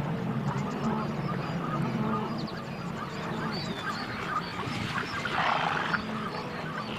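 A wildebeest herd grunting, many animals calling over one another in a steady low chorus, with a louder noisy burst about five and a half seconds in.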